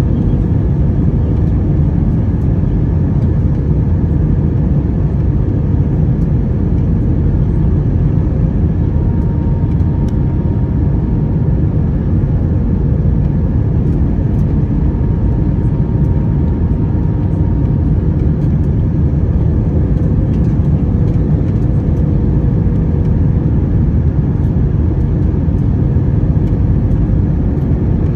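Steady low rumble of an Airbus A321-200 airliner heard from inside the passenger cabin: engine and airflow noise with a faint steady hum over it.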